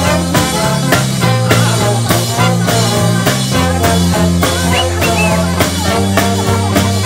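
Live brass band playing an up-tempo number: trumpets, trombones and saxophones on the melody over electric guitar, bass guitar and a drum kit keeping a steady beat.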